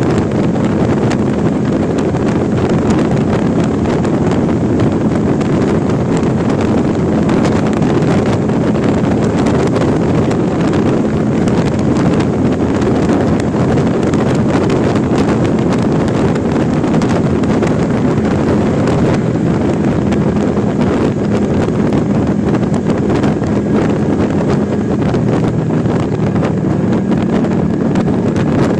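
Suzuki Intruder VL800 V-twin running at steady highway speed, its even engine hum under loud, steady wind noise on the microphone.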